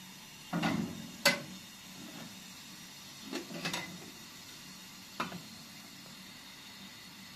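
A metal kettle set down on a gas stove's grate and a steel teapot set on top of it: four short groups of clunks and metallic clicks over about five seconds, the loudest a sharp click about a second in.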